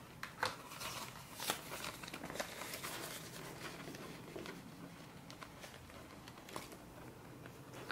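Faint crinkling and rustling of a clear plastic cash envelope as paper bills are slid in, with scattered light clicks that are thickest in the first couple of seconds.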